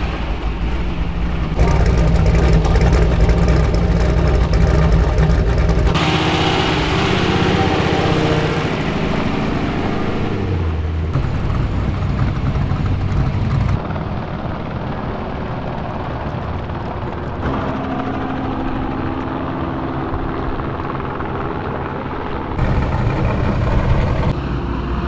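Trophy truck engines running loud as the off-road race trucks roll across the dirt, with abrupt changes in sound where separate shots are cut together.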